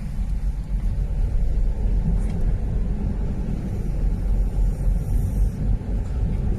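Steady low rumble of a vehicle engine.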